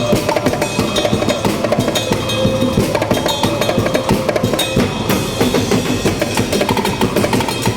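Drum band playing a fast percussion groove of dense, rapid snare and bass drum strikes with sharp wood-block-like clicks. A steady held tone underneath stops about five seconds in.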